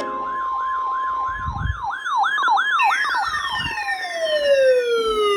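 Electronic emergency alert tones: a steady beep with a fast up-and-down warbling siren tone over it. The warble takes over, and from about three seconds in a long falling glide sweeps downward.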